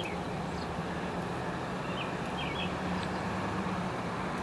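Steady hum of street traffic with a constant low drone, and a few short high chirps near the start and about two seconds in.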